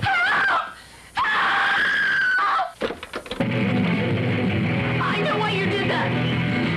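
High-pitched screaming in two cries: a short one, then a long held wail. About three and a half seconds in, rock music with guitar starts abruptly from a small radio being switched on, and runs on steadily.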